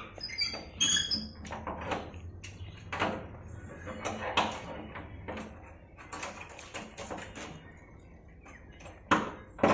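Irregular knocks and clatters over a steady low hum, with a few brief high squeaks in the first second and a louder knock near the end.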